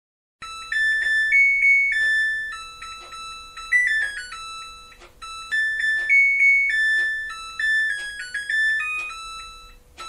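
Background music: a light keyboard melody of short, bright, decaying notes, its opening phrase repeating about halfway through.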